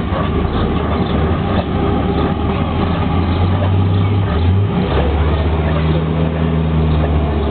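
An engine running with a steady low hum that shifts in pitch about halfway through.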